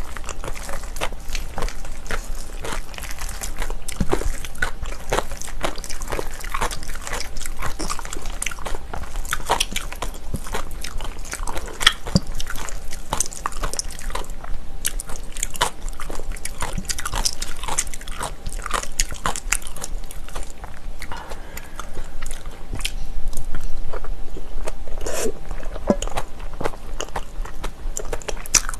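Metal spoon scraping and clinking against a stainless steel bowl as bibimbap is stirred and mixed, with close-miked chewing, in a quick run of short clicks and scrapes.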